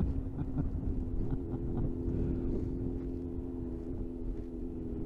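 Suzuki GSX-R sport motorcycle engine running at a steady cruising speed, its tone holding level, heard from the rider's own bike with low wind and road rumble on the microphone.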